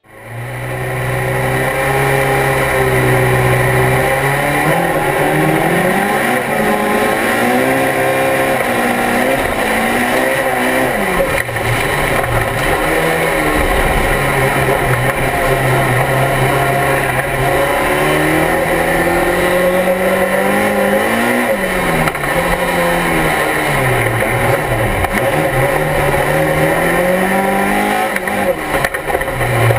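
Rallycross car's engine heard from inside the cockpit: it holds steady revs for about four seconds, then rises and falls repeatedly in pitch as the car accelerates through the gears and lifts for corners.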